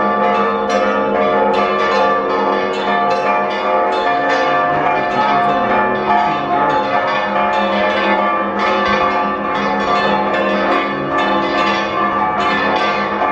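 Church bells ringing a rapid festive repique: several bells struck over and over in quick succession, their tones ringing on and overlapping into a continuous peal.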